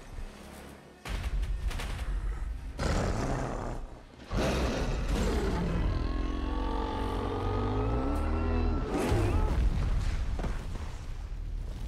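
Goro, a four-armed monster, lets out a long roar of about four seconds with several bending pitch layers. It comes over a steady low rumble, and a few sharp hits come before it.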